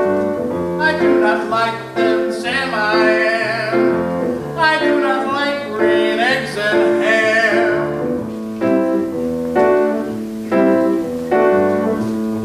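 Piano accompaniment with a man singing over it, the voice wavering in vibrato on held notes.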